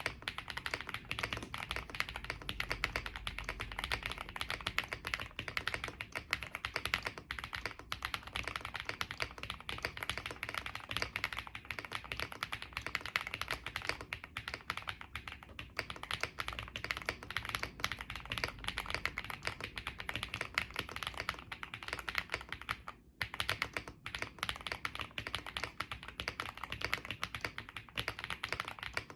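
Fast continuous typing on a stock Epomaker Galaxy68 mechanical keyboard with Marble White switches, stock foams, plate and keycaps: a dense stream of key clacks, with a brief pause about 23 seconds in.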